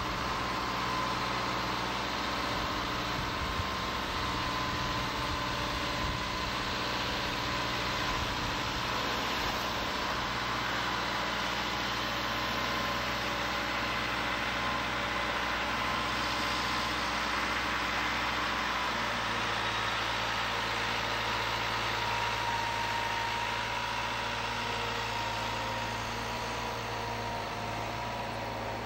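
Bridge inspection truck's engine running steadily at idle, with a faint steady whine above the hum; its note shifts slightly about two-thirds of the way in.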